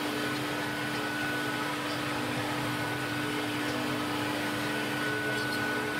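ATS-series CNC wood router running: its electric spindle gives a steady high whine over an even mechanical hiss.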